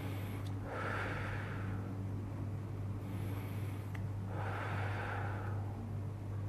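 Slow, deep breaths close to the microphone, two long breaths about three to four seconds apart, over a steady low hum. The breaths are part of a guided deep-breathing exercise: a long breath in, held, then let out as slowly as possible.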